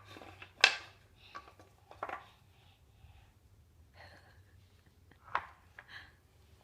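A few sharp taps or knocks, spaced a second or more apart, with faint, soft sounds between them that may be a toddler babbling.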